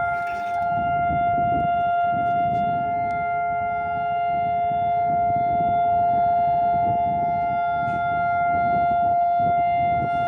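Israeli civil-defence siren sounding the Memorial Day remembrance signal: one steady tone held at a constant pitch, over a low background rumble. The unbroken, non-wailing tone marks the moment of silence for the fallen, not an air-raid alert.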